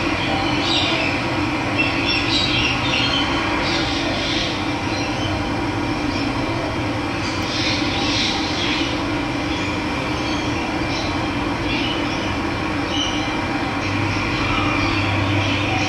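Running water rushing steadily, with birds chirping in short bursts over it every second or two.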